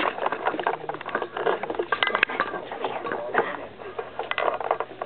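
Handling noise from a handheld camera being carried while walking: a dense run of irregular clicks and knocks.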